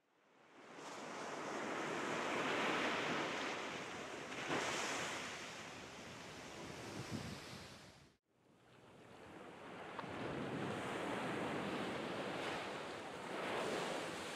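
Ocean surf: waves washing and breaking on a shore, swelling and ebbing. The surf cuts out abruptly about eight seconds in, then fades back in.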